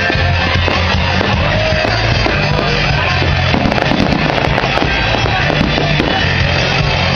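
Loud amplified music with a heavy, steady bass line, with fireworks going off over it: scattered bangs and crackles, thickest around the middle.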